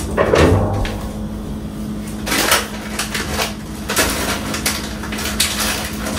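Plastic bag of edamame crinkling and crackling as it is handled, in short bursts from about two seconds in, over a steady low hum. There is a brief clunk near the start.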